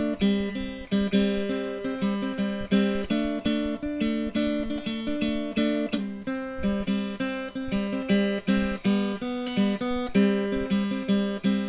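Background music: an acoustic guitar strummed in a steady rhythm, the chords changing every few beats.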